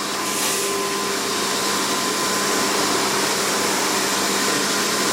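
Numatic Henry canister vacuum cleaner running steadily as it is used to hoover a dog's coat: a constant rush of air with a steady hum and whine.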